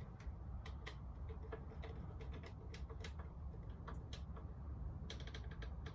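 Small clicks and ticks of a screwdriver and copper conductors at a light switch's terminal screws as the wires are fitted and clamped down, with a quick run of ticks about five seconds in.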